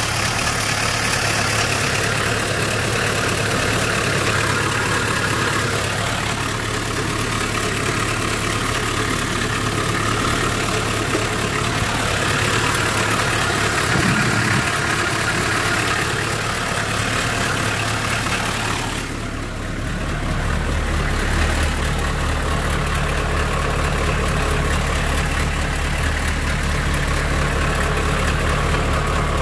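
The 1984 M1008 CUCV's 6.2-litre naturally aspirated V8 diesel idling steadily, turning deeper and heavier about two-thirds of the way through.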